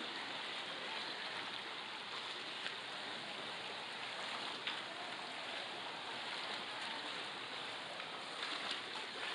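Pool water splashing and lapping steadily as swimmers swim front crawl close by, with a couple of light knocks.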